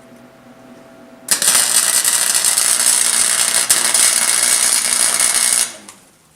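Welding arc crackling loudly for about four seconds on a steel exhaust pipe, then cutting off abruptly, along with a low electrical hum, as the overloaded house circuit's fuse blows.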